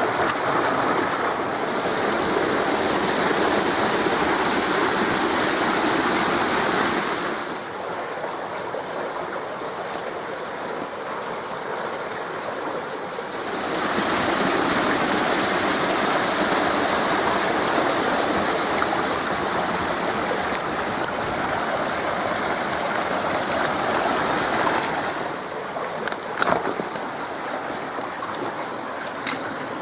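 Creek water rushing steadily over rocks, louder for two long stretches and softer in between, with a few faint clicks.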